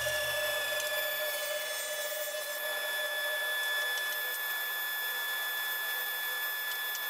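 Table saw running with a steady high whine while small wooden blocks are cut, with a few faint clicks.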